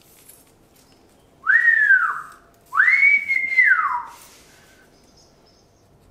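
A person whistling two notes, each sliding up and back down. The second is longer, held at the top before falling away.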